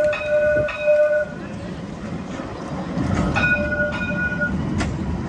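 Alstom Citadis 304 tram's warning bell, a bell-like tone struck twice in quick succession and again about three seconds in, over the low rumble of the tram running on its rails, which grows louder partway through.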